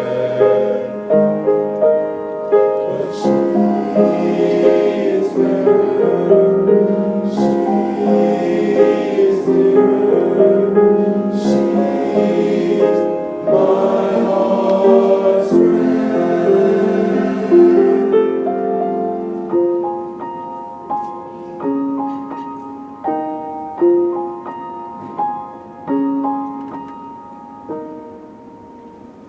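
A young men's choir singing in parts with piano accompaniment; about two-thirds of the way through the voices drop out and the piano plays on alone, growing softer.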